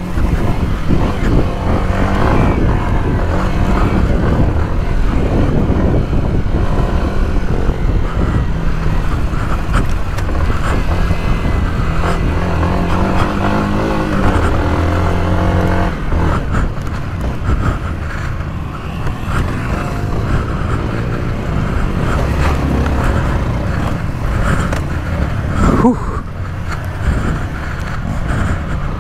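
Yamaha dirt bike engine running under throttle while riding off-road, its pitch rising and falling as the throttle opens and closes. A short sharp rev comes near the end.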